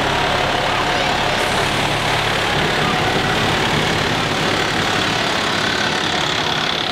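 Diesel engine of a tower ladder fire truck running steadily at low speed as the truck rolls slowly past.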